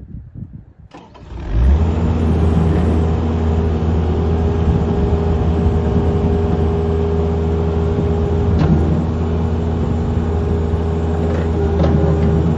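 Thomas 153 skid steer's Kubota diesel engine starting up about a second in, then running at a steady speed.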